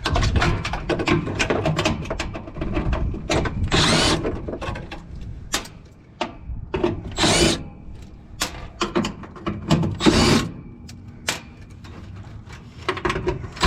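Hand-tool work on a rooftop unit's inducer motor assembly: many metallic clicks and rattles, with three short, loud bursts of noise about four, seven and ten seconds in.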